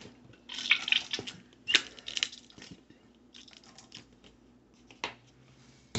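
Plastic ketchup squeeze bottle squeezed out into a steel bowl, sputtering in a few short splutters over the first two seconds or so, then a few light clicks and taps as the bottle is handled.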